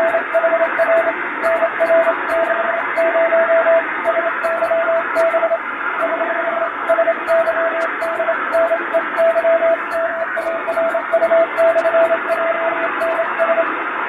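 Hand-keyed Morse code on a straight key: a single steady tone switching on and off in dots and dashes over shortwave radio hiss, recreating a received HF ship's radiotelegram signal. The keying includes an eight-dot error sign followed by a correction. Faint clicks from the key itself land with the keying.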